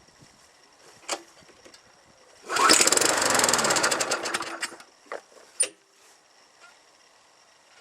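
Small lawnmower engine on a tank of nitro fuel pull-started: it catches about two and a half seconds in, fires rapidly for about two seconds and dies out. A few sharp clicks come before and after.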